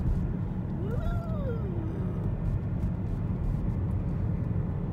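Steady low road and engine rumble inside a moving car's cabin. About a second in, one brief whine rises and then falls in pitch over about a second.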